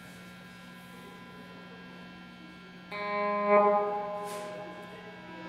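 Electric guitar played through effects: a faint steady low hum, then about three seconds in a sustained chord of several notes comes in suddenly, swells briefly and slowly fades.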